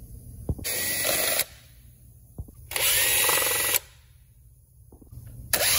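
Power drill with a long extension bit running in short bursts to back out the screws of an engine's top cover. There are two bursts of about a second each with a steady whine, and a third starts near the end.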